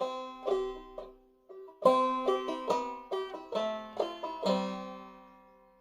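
Five-string banjo played clawhammer style in eCGCD tuning: a short phrase of plucked notes, a brief pause, then a faster run that ends on a ringing chord that fades out.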